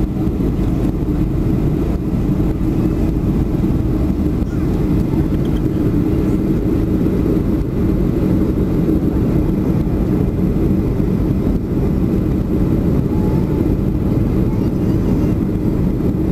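Steady cabin noise of a Boeing 737-400 in flight, heard inside the cabin from a seat over the wing: the low drone of its CFM56-3 turbofan engines and rushing airflow, with a steady low hum running through it.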